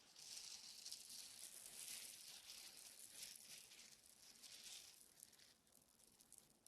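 Slime being played with: faint, fine crackling and squishing, made of many tiny ticks that thin out and fade over the last couple of seconds.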